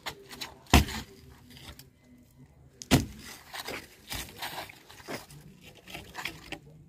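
Two loud, sharp knocks about two seconds apart, with lighter knocks and scuffs in between and after.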